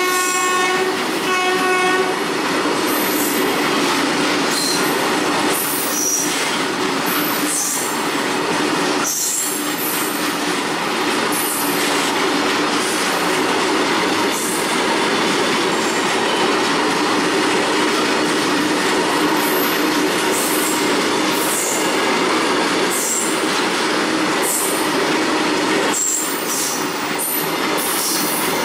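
Tarpaulin-covered BOXN freight wagons of an Indian Railways goods train rolling steadily past at close range: a continuous rumble of steel wheels on rail, irregular clicks over rail joints and intermittent high wheel squeals. A horn sounds briefly about a second in.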